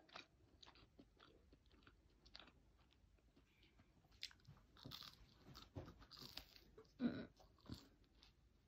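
Quiet mouth noises of someone drinking an ice-cold drink from a cup: scattered sips, swallows and small crunchy clicks, with one louder short sound about seven seconds in.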